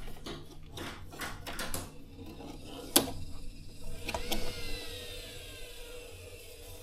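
Tool and metal-part handling on a washing machine's drum pulley: a run of clicks and knocks, with one sharp knock about three seconds in, then a ringing tone that slowly falls in pitch and fades.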